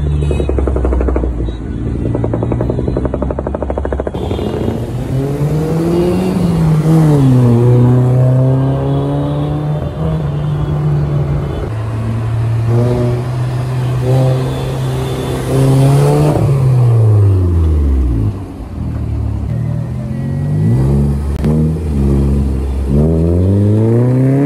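Volkswagen Vento with a loud exhaust, revving and driving in traffic. The engine note climbs and drops off about three times, holding a steady pitch in between.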